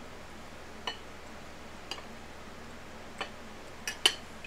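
Fork or knife clicking against a dinner plate: a few sharp taps spread out, then two close together near the end, which are the loudest.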